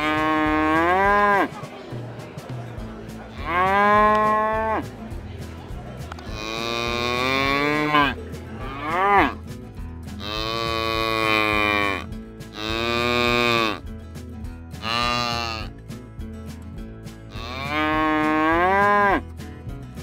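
Cattle mooing, about eight long calls of different pitches, each rising and then falling, some lower and some much higher.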